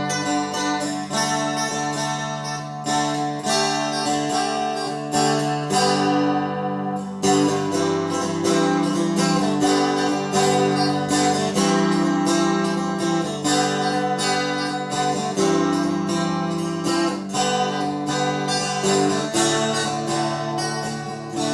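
Canjo in Irish GDAE tuning played through a Marshall amplifier: a continuous run of plucked and strummed notes.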